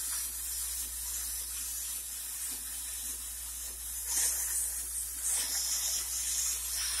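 H2O Mop X5 handheld steam cleaner jetting steam and spitting hot water into a sink: a steady hiss with a low hum beneath, growing louder in spurts from about four seconds in.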